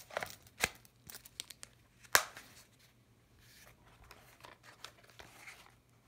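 Handling of a nylon military holster and a pistol: stiff nylon fabric rustling and scraping, with scattered small clicks and one sharp, loud click about two seconds in.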